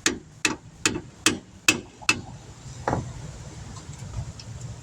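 Hammer tapping on a rear disc brake part to drive it into place: six evenly spaced strikes, about two and a half a second, then one more strike about a second later.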